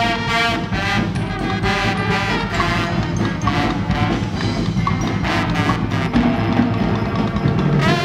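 Guggenmusik carnival band playing loudly: trumpets, trombones and saxophones over drums, swelling into a long held chord at the end.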